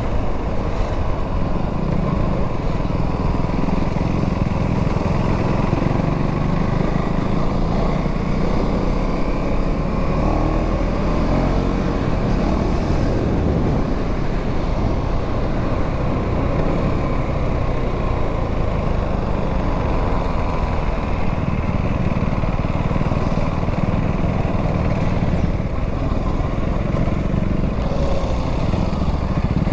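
2025 KTM Duke 390's single-cylinder engine running steadily on the move through its stock exhaust, its note rising and falling gently now and then with the throttle.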